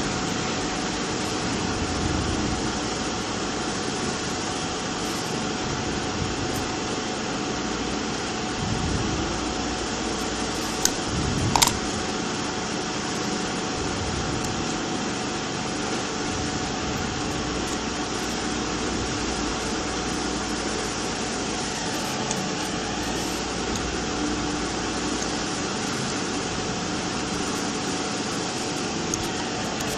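Steady whooshing hum of an electric fan or blower running, with a faint steady whine held at one pitch. A short click sounds about eleven and a half seconds in.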